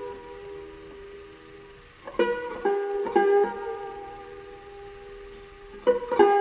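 Turkish tanbur, a long-necked fretted lute, played solo in a slow, free-rhythm improvisation in makam Hüzzam. Small groups of plucked notes come about three times, and each is left to ring and fade between them.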